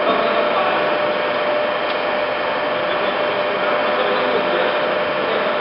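POREBA TCG 125 heavy-duty lathe running steadily, its gear train giving a constant mechanical rattle with a steady whine.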